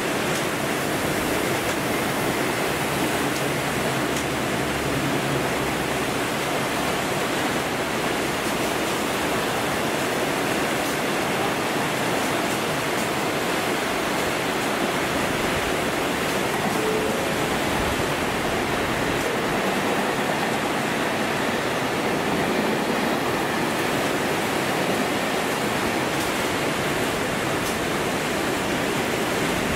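Torrential cloudburst rain falling on a railway platform, its tracks and its canopy roof: a dense, steady rush of heavy rain.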